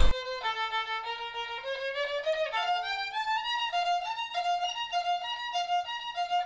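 Violin music playing a quick, light tune, with a rising run of notes about two seconds in, followed by fast notes flicking back and forth.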